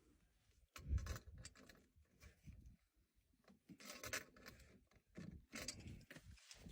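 Faint, irregular rubbing and scraping, with a stronger scuff about a second in and more around the middle and near the end.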